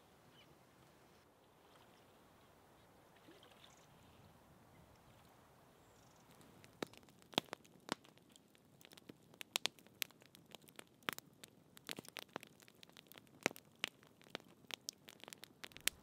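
Faint hush, then from about six seconds in a wood campfire crackling, with sharp, irregular pops and snaps.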